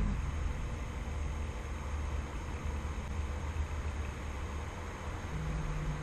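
LGB IVK 145 model steam locomotive standing still with no chuffing: a steady low hiss and rumble, with a faint low hum joining near the end.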